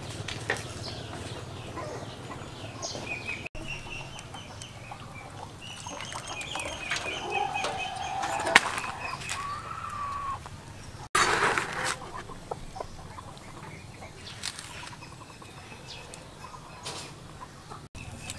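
Chickens clucking on and off, with a single sharp click about halfway through and a loud burst of noise lasting about a second shortly after.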